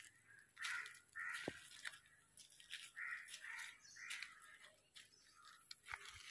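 Crows cawing, a faint string of short repeated caws.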